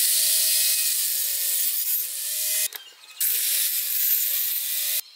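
Angle grinder fitted with a toothed circular saw blade, running as a home-made sliding saw: the motor spins up to a high whine and then cuts off suddenly, twice. In each run the pitch sags briefly as the blade bites into pallet wood.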